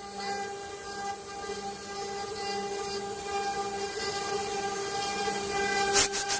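CNC machine spindle running with a steady whine. Near the end come a few short, loud bursts of noise.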